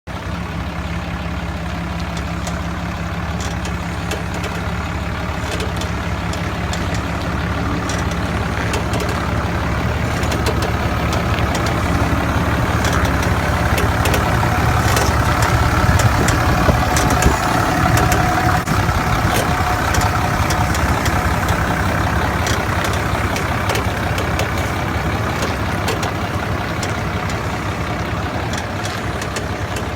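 2012 Ram 2500 pickup running, a steady low engine and vehicle rumble that swells gradually to a peak about halfway through and then eases off, with faint light ticks over it.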